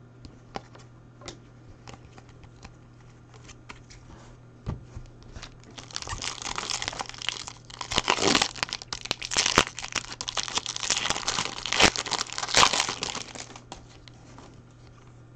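Light clicks of trading cards being handled. Then, about six seconds in, the foil wrapper of a 2018 Topps Chrome Jumbo pack is torn open and crinkled loudly for several seconds before it dies down near the end.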